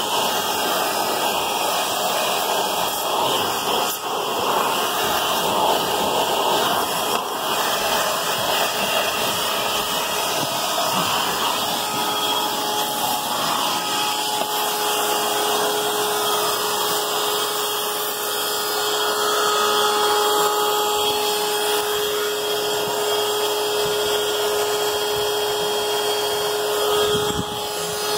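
Vacuum cleaner running steadily, its nozzle working over a car's floor carpet, with a steady rushing sound and a faint whine.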